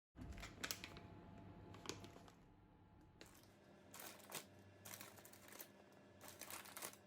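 Handling sounds: a series of soft rustles and light clicks coming irregularly about once a second, over a faint steady room hum.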